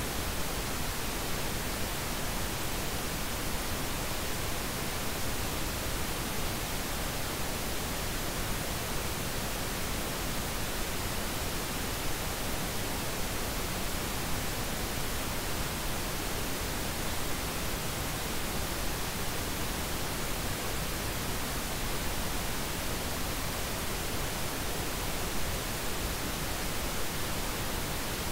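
Steady generated noise: an even hiss across low and high pitches that never changes.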